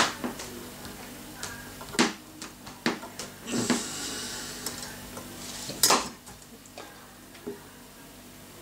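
Sharp metal clicks and knocks from a hand-worked pen assembly press as the pen's twist mechanism is pressed into the tube. The loudest knocks come at the start, about two seconds in and about six seconds in, with a short rasping stretch in between.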